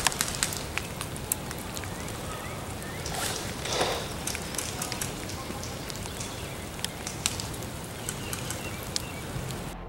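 Rain pattering, with many scattered sharp drop clicks, probably on the camera and gear. There is a brief louder swish about three and a half seconds in.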